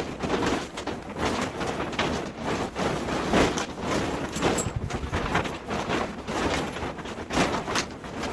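Continuous irregular rustling, scraping and handling noise, typical of a grow tent's fabric cover being pulled and worked onto its frame, with a couple of sharper knocks near the end.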